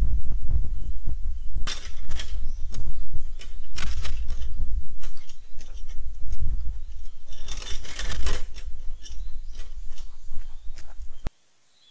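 Heavy wind rumble on the microphone, with crackling rustles and clattering knocks as a person climbs over a gate and runs across dry leaf litter.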